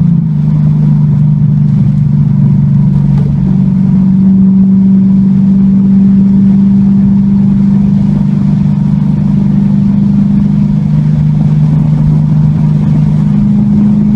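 Car engine heard from inside the cabin, a steady drone under even throttle as the car gathers speed through a long corner, its pitch creeping slightly higher near the end.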